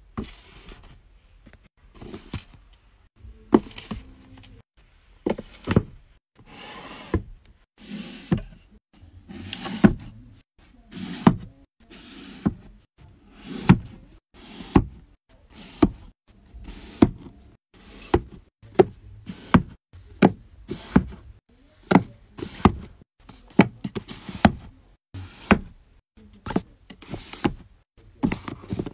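Books being set down forcefully and shoved into place on a wooden bookshelf: a long run of sharp knocks and thuds, about one to two a second, with book covers sliding and scraping on the wood in between.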